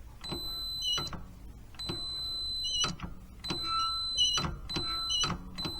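Multimeter continuity beeper sounding a steady high-pitched tone in repeated beeps, about five times, each lasting up to a second and starting and stopping with a click as the golf cart's foot-pedal start-stop switch is pressed and released. The beep each time means the switch closes its circuit: the foot switch is good.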